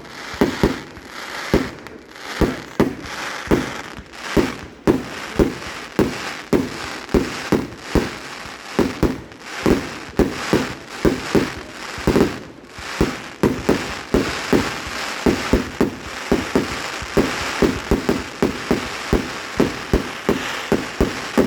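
Fireworks display in a rapid barrage: shell bursts banging about two to three times a second over a steady crackle of crackling stars.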